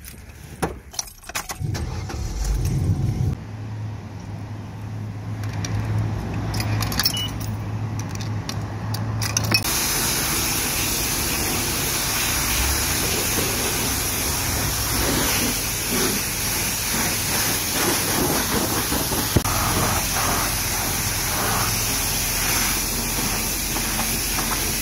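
Clicks and rattles of keys and a pickup truck's door handle, then the truck's engine starts and runs steadily. From about ten seconds in, a car-wash pressure wand's water jet hits the truck's door and window in a loud steady hiss.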